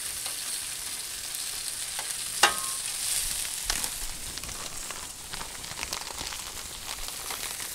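Cream sauce sizzling in a cast iron skillet and chicken frying on a Blackstone flat-top griddle: a steady hiss. One sharp clink stands out about two and a half seconds in.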